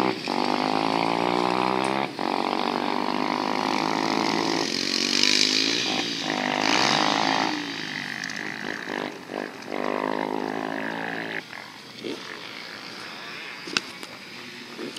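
Dirt bike engine revving hard, its pitch dropping briefly at each gear change, then easing off, climbing once more and fading in the last few seconds. A single sharp click near the end.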